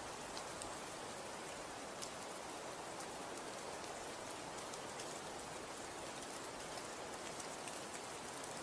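Falling snow pattering steadily, a soft even hiss with many scattered light ticks.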